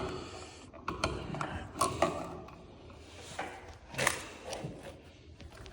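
Scattered clicks, knocks and rustling of hands handling electrical wires and hand tools at an outlet box.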